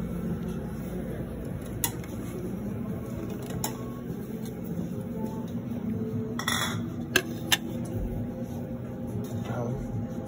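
Dishes and metal serving utensils at a buffet counter clinking a few times, two sharp clinks close together the loudest, over a steady background din of the dining room.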